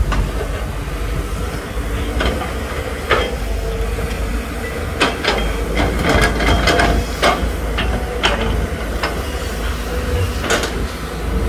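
Volvo EC210D crawler excavator's diesel engine running steadily while the bucket digs in wet earth, with a series of sharp metal knocks and clanks from the bucket and linkage, thickest about halfway through.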